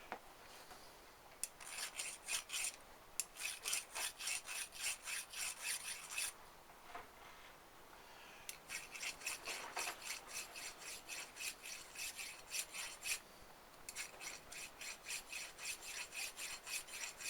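Hand file rasping back and forth over a damaged spacer from a Citroen 2CV driveshaft output hub, about three to four strokes a second, in three runs with short pauses between them. The filing cleans up the damage and brings the spacer back round.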